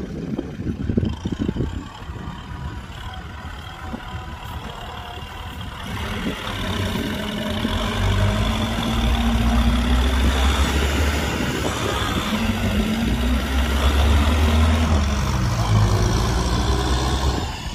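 Kubota tractor's diesel engine running, quieter for the first few seconds, then revving up from about six seconds in, its pitch rising and falling twice under load before easing off near the end.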